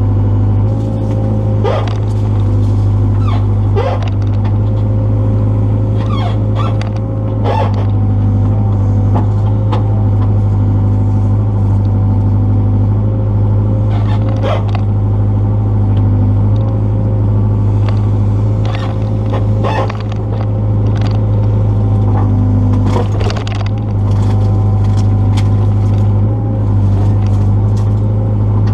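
Excavator engine running steadily, with scattered sharp knocks and scrapes over it.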